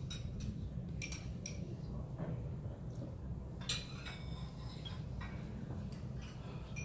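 Steady low room hum with scattered light clinks and ticks, one sharper clink about halfway through.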